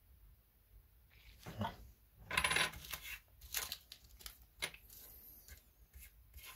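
Silver German Empire mark coins being set down on a wooden tabletop: a series of clinks, the loudest about two seconds in with a short metallic ring, then a few lighter clicks.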